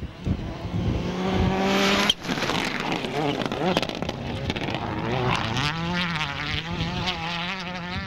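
Skoda Fabia WRC rally car's turbocharged four-cylinder engine at full throttle on a gravel stage, its pitch climbing as it comes on. About two seconds in the sound cuts abruptly to another pass, where the revs waver up and down as the car slides by.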